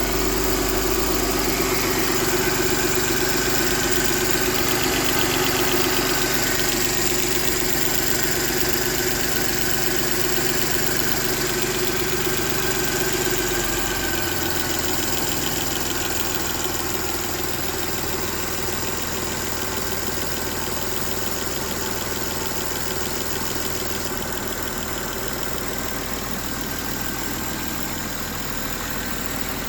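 Mercedes-Benz M272 V6 petrol engine idling steadily with a ticking noise. The low hum of the engine changes about halfway through.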